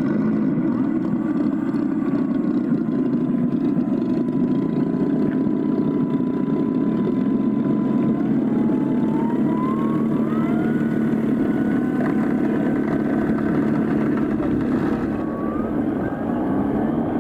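Steady loud rumble with the thin whine of a large model Hawker Hurricane's Hacker A60 electric motor, the whine stepping up in pitch about eight to eleven seconds in and again near the end as the throttle is opened for taxiing.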